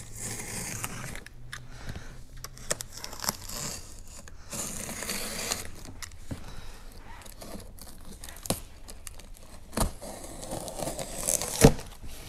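A cardboard shipping box being opened by hand: tearing of tape and cardboard and crinkling of packing material, with scattered sharp clicks and knocks, the loudest near the end.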